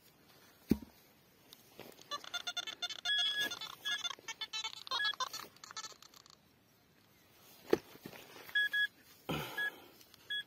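Metal detector sounding a run of target tones at changing pitches as its coil sweeps over the dug hole. Near the end come short repeated beeps at one pitch from a handheld pinpointer probed into the hole, with a few sharp knocks of the tools in between.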